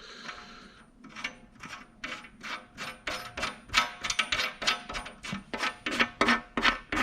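Ratchet wrench clicking in quick strokes, several clicks a second, while a bolt on a steel welding table is tightened.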